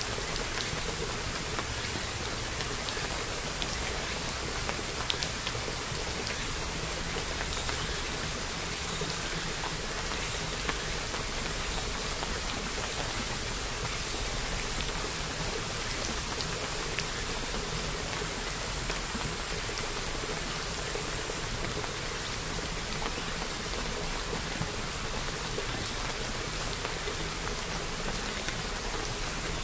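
Crepe batter sizzling in an oiled non-stick frying pan: a steady hiss with scattered small pops.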